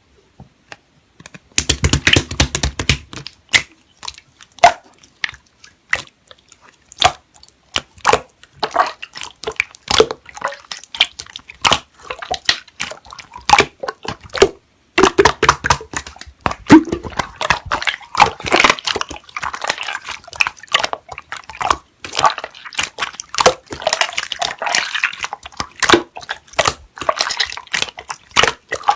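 Slime being squeezed, poked and stretched by hand, giving a dense run of irregular wet clicks, pops and squelches.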